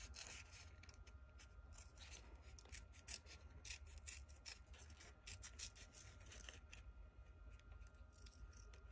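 Scissors making quiet, short snips through paper covered in clear tape, several snips a second in an uneven run as a small circle is cut out.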